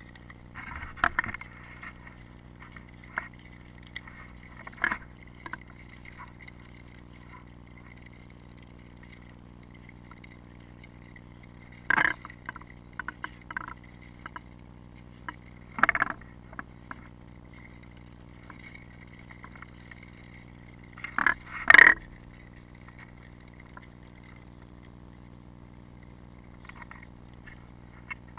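Ice skates gliding and scraping over river ice with a steady hiss, broken by a handful of sharp knocks on the ice, the loudest about two-thirds of the way through.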